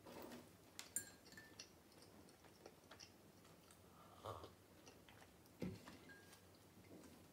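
Faint table sounds of someone eating: a few light clicks, a swallowed sip of coffee from a glass mug about four seconds in, and a knock as the glass mug is set down on the table soon after.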